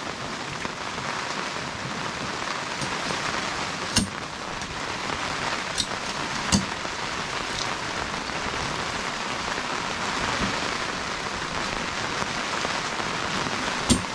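Steady rain, with a few sharp clacks from the metal legs of a plastic folding table being folded: one about four seconds in, two more around six to seven seconds, and one near the end.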